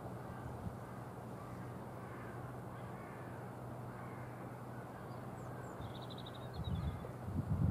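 Outdoor ambience: a bird calling, with a quick run of short high chirps about six seconds in, over a steady low hum. Near the end, wind gusts buffet the microphone.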